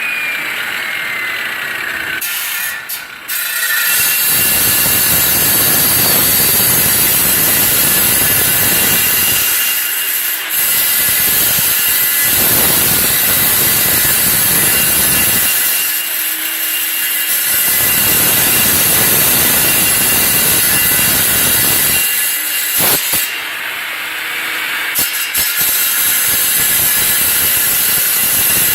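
A power saw cutting through large HVAC pipe, in four long loud passes with short breaks between them.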